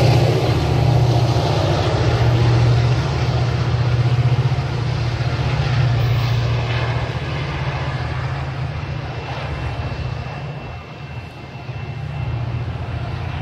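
Diesel locomotive of a Metra commuter train working under power as the train pulls away, its engine drone steady and low, growing gradually fainter as it recedes.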